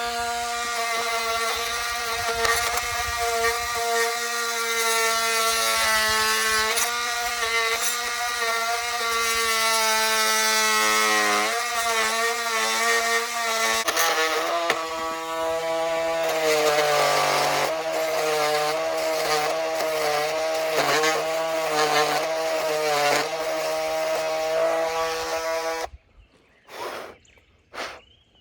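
A small engine running steadily, its pitch shifting as the speed changes partway through. It cuts off suddenly near the end, leaving near silence with a few clicks.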